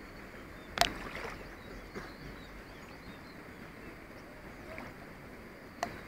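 Steady hiss of river water and wind around a raft drifting on a calm river, with one sharp knock about a second in and fainter clicks at about two seconds and just before the end.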